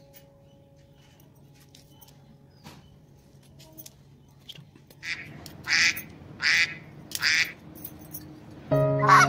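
A few seconds of faint clicks, then three loud, harsh animal calls a little under a second apart. Music comes in just before the end.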